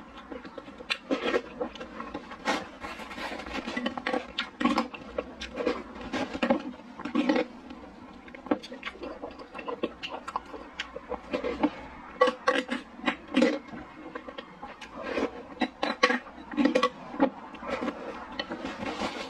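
Close-up eating sounds of a milk-tea dessert soup with purple rice and glutinous rice balls: repeated wet sips and slurps from a ceramic spoon, and sticky chewing smacks in an irregular run.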